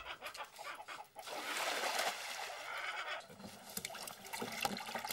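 Water poured into a plastic tub for about two seconds, then small splashes and drips as a hand swishes through the shallow water among live shrimp.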